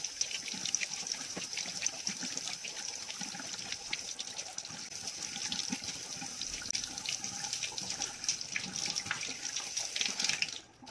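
Kitchen tap running as fresh oyster mushrooms are rinsed under it by hand, water splashing off them into the sink. The flow stops just before the end.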